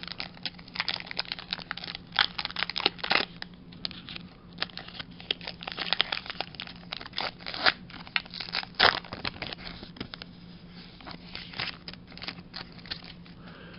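Foil wrapper of a Pokémon card booster pack being torn open and crinkled by hand, with cards handled: irregular crackles and snaps throughout.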